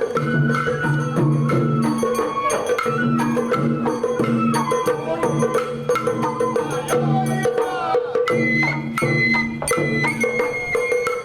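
Sawara-bayashi festival music played live: a high melody over repeated low tones and a steady rhythm of drum and bell strikes.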